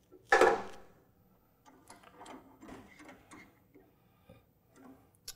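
A metallic clunk about half a second in, then a run of faint, irregular clicks and ticks as a chuck key turns a three-jaw lathe chuck, closing its jaws on a tool shank; a sharp click near the end.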